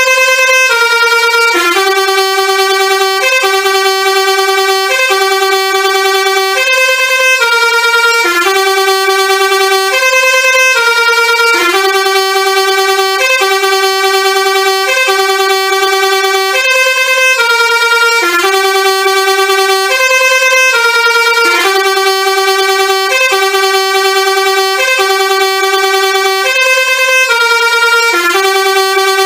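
Telolet horn, the multi-tone musical air horn of Indonesian buses, playing a tune without pause. The held notes step up and down in pitch, and the phrase repeats over and over.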